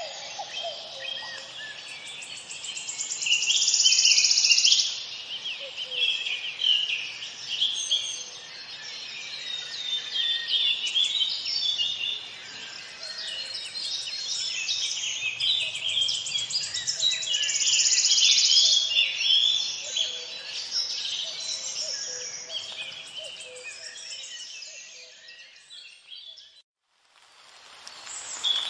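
A chorus of songbirds chirping and singing, many short calls overlapping, with a high, rapidly pulsing insect buzz that swells twice. The sound cuts out briefly near the end and then the birdsong resumes.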